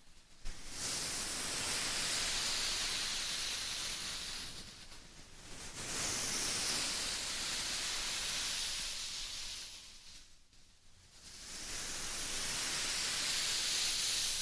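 Soft white-noise hiss swelling and fading in three long waves of about four seconds each, with brief pauses between them.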